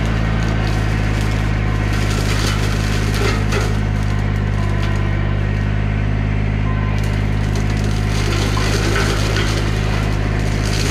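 Bobcat E35 mini excavator's diesel engine running steadily under load while its Baumalight CXC530 hydraulic brush mower head shreds brush and limbs. The wood crunches and splinters in bursts, about two seconds in and again near the end.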